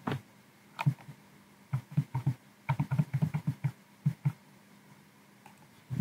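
Computer mouse clicking: a scattering of quick, light clicks, a few early, then a dense run of them in the middle, with one more near the end.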